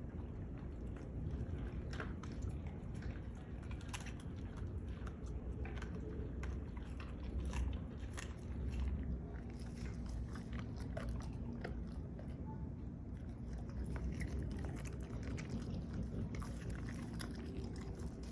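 Dogs chewing and crunching whole raw chickens, with the bones cracking in many irregular sharp crunches.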